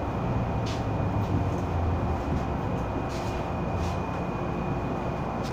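MTR M-Train electric multiple unit heard from inside the passenger car, a steady rumble of the train running with a thin, steady high whine. A few brief hisses come through.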